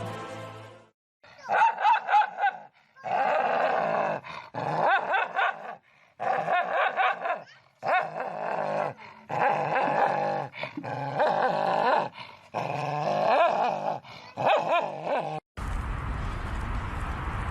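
A dog vocalizing in about nine drawn-out whining, grumbling bouts whose pitch bends up and down, each about a second long with short gaps. Near the end it cuts abruptly to a steady noisy background.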